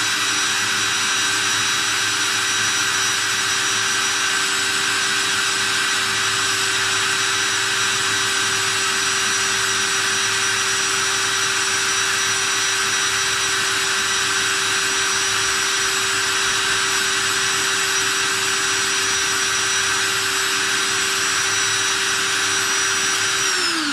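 DeWalt cordless drill running at a steady high speed, spinning a brass cartridge case while it is polished with Nevr-Dull wadding: an even motor whine that winds down near the end as the trigger is released.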